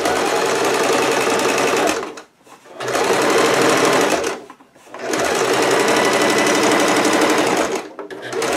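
Domestic sewing machine running at a steady speed, sewing a straight stitch. It runs in three bursts, of about two, one and a half and three seconds, with short pauses between them.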